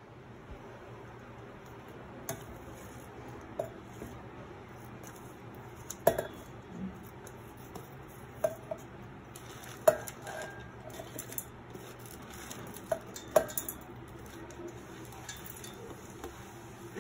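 Scattered clinks and knocks of a stainless steel plate against a steel mixer-grinder jar as a hand pushes chopped coconut, herbs and spices off the plate into the jar. The sharpest knocks come about six and ten seconds in, over a faint steady hum.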